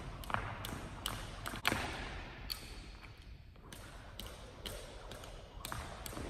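Jump rope slapping a hardwood gym floor with each swing, about three sharp slaps a second. The slaps stop for about a second and a half a little past the middle, then start again in the same rhythm.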